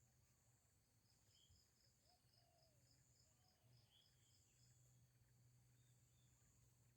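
Faint forest ambience: distant birds calling, with a rapid run of short high notes at about four a second, a few brief chirps and a couple of low whistled notes, over a steady insect hiss.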